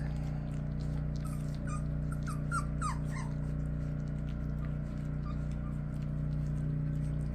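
Four-week-old cockapoo puppies eating raw ground beef from a shared tray, with several short, high puppy whimpers about one to three seconds in, one sliding down in pitch. A steady low hum runs underneath.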